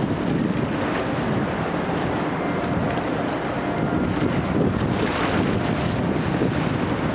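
Steady wind buffeting the microphone over a rush of harbour water and boat noise, with no clear events.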